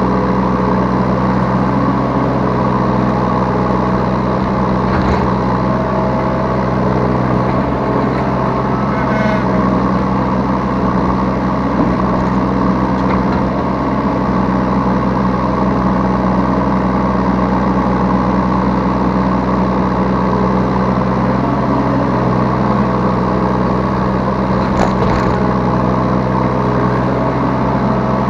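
Yanmar B3 Sigma 3-tonne mini excavator's diesel engine running steadily, heard from the operator's seat, with a few faint clicks from the work.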